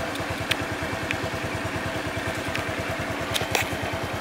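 Motorbike engine idling steadily, an even low putter, with a few light clicks over it.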